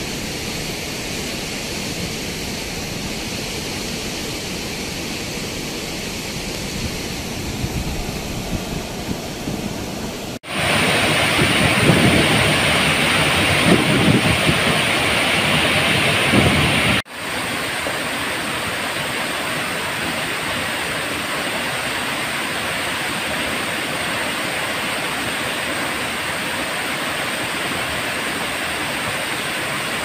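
Waterfall in full spate, overflowing after heavy rain: a steady rush of falling water. It jumps much louder and brighter about ten seconds in, at a close view of the falls, and drops back to a steady roar about six seconds later.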